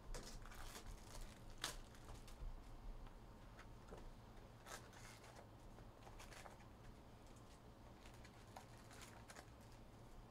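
Faint, scattered crinkling and tearing of trading-card packaging as a hobby box of Bowman Chrome football cards is opened.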